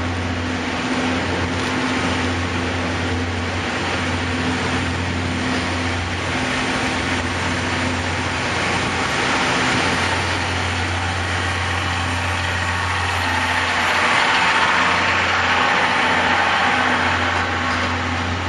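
Train of 12-series passenger coaches behind an EF60 electric locomotive rolling slowly past. A steady mechanical hum with a low drone and a higher steady tone runs under the rumble of the wheels on the rails, and the rolling noise grows somewhat louder from about twelve seconds in.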